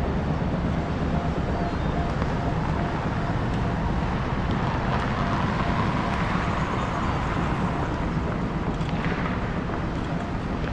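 Steady city street traffic: the running of cars and tyres on the road, with one vehicle passing more closely around the middle.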